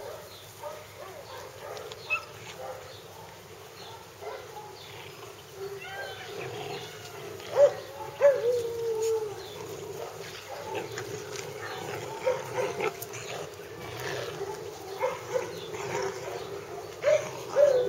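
Hungarian Vizsla puppies whining and yipping as they tug on a rope together. The calls are short and scattered, with two sharp ones about halfway through and a long falling whine near the end.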